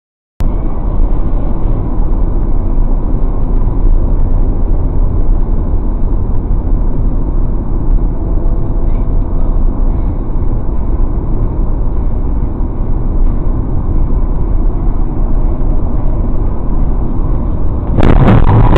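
Steady road and engine rumble heard inside a car cabin at highway speed. Near the end comes a sudden loud crash as a pickup truck hits the car.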